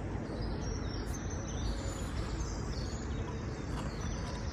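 Steady outdoor background noise with small birds chirping now and then.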